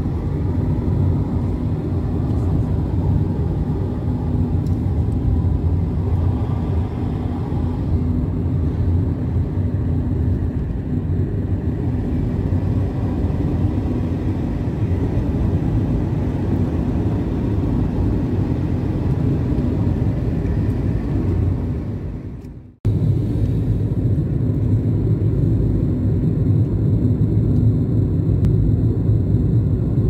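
Steady low road and engine noise of a car driving, heard from inside the cabin. About three quarters of the way through, the sound briefly fades away and then cuts straight back in.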